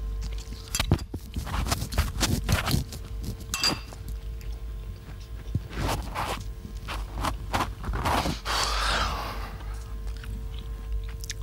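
Irregular light knocks, scrapes and clinks of a spoon in a bowl and people moving about a kitchen on a hard floor, with a faint steady hum underneath.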